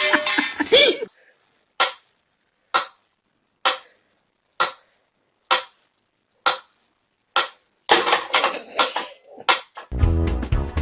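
A series of seven short, sharp sounds, evenly spaced a little under a second apart, followed near the end by a burst of loud noise with a thin high tone in it.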